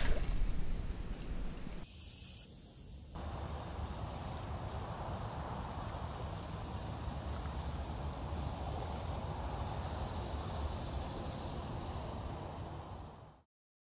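Creek water running over a log, a steady rushing, with insects buzzing high in the background. About two seconds in, the insect buzz is briefly much louder for a second or so; near the end everything fades out quickly.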